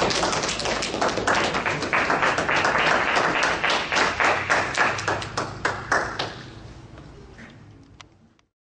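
A congregation applauding, a dense patter of many hands clapping that thins out and fades away from about six seconds in.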